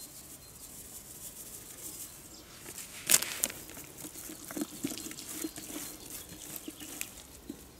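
Groundbait being mixed by hand in a plastic bucket: a faint pour of dry powder from a plastic bag, a single sharp plastic crackle about three seconds in, then scattered soft rustling and ticking as the hand kneads the damp bread and groundbait to thicken it.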